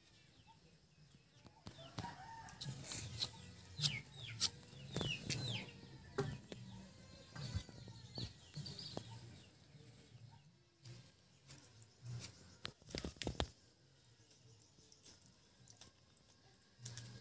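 Chickens clucking, with short falling calls in the first half, and a few sharp knocks or taps scattered through, two close together later on.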